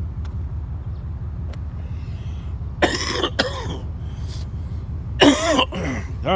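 A person coughing twice, once about three seconds in and again louder near the end, over the steady low rumble of the truck's engine.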